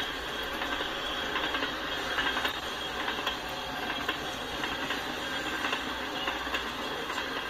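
Freight train of loaded tank cars rolling steadily past: continuous wheel-on-rail noise with scattered clicks from the wheels.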